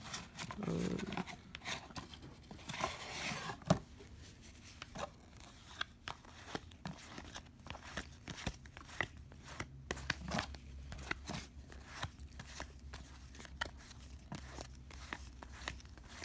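Cardboard trading cards being flipped through one at a time by hand: a string of short, light card snaps and slides, a couple a second, with a brief rustle and a sharper snap about three and a half seconds in.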